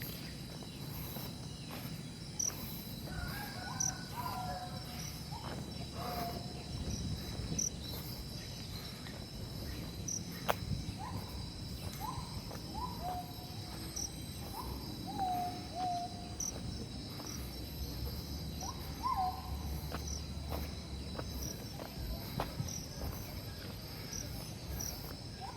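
Steady high-pitched insect drone of crickets in rural surroundings, with an animal repeating a short call about a dozen times. Each call rises and then drops to a held lower note.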